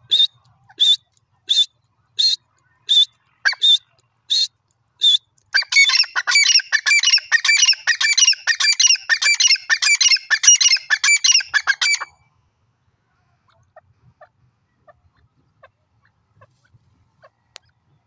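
Grey francolin calling. It gives a string of single sharp notes, a little under one a second, for about five seconds. Then it breaks into a fast, dense run of repeated call phrases for about six seconds, which stops abruptly.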